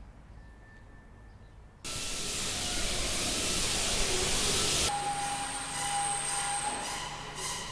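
A loud steady hiss starts suddenly about two seconds in and stops abruptly about five seconds in. It is followed by a steady hum with a thin high whine.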